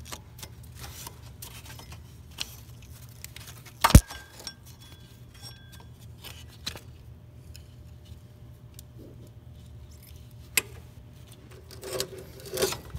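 Metal hand tools clinking and rattling against one another, with one sharp metallic clank about four seconds in that rings briefly, and a few more clinks near the end.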